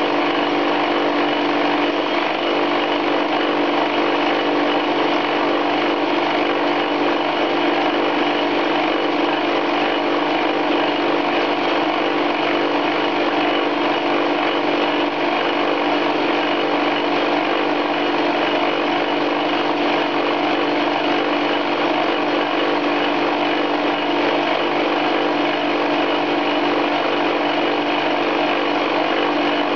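Chinese 10 x 18 metal lathe spinning a two-tipped carbide fly cutter through a full 1 mm interrupted facing cut in hard steel, held in a vertical milling slide. It makes a steady machining noise with a strong hum and no change in pace.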